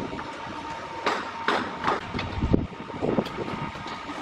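Terracotta clay roof tiles clacking and knocking as they are handled and set in place, a series of sharp knocks with one heavier thud about two and a half seconds in.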